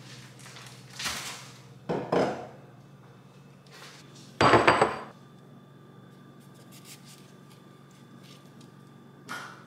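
Kitchen handling sounds: a few knocks and clatters as food and a bowl are handled and set down on a stone countertop, the loudest about four and a half seconds in. A low steady hum runs underneath.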